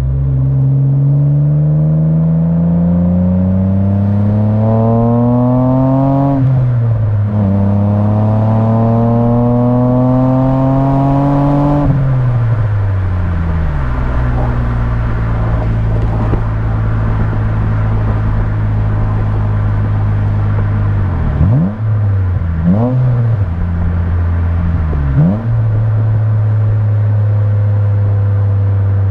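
Exhaust of a 2009 Mitsubishi Eclipse GT's 3.8-litre V6 under way: it accelerates through two gears, with upshifts about 6 and 12 seconds in, then cruises steadily. The revs dip and jump back three times between about 21 and 25 seconds in.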